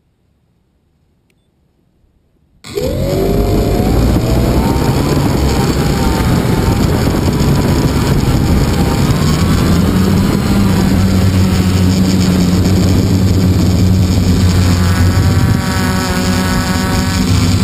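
RC model airplane's motor starting abruptly about two and a half seconds in, rising quickly in pitch and then running steadily at high power through the takeoff and climb, heard from a camera on the plane along with rushing noise.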